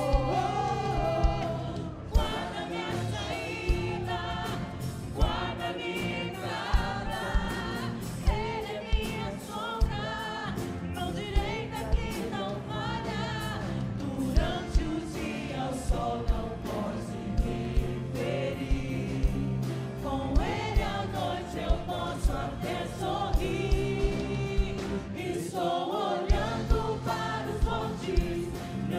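Gospel choir singing over a live band, with drum hits on a steady beat.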